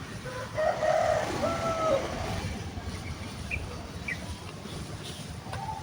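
Rural outdoor ambience: a steady low rumble of wind on the microphone, a distant wavering call in the first two seconds, and two short bird chirps near the middle.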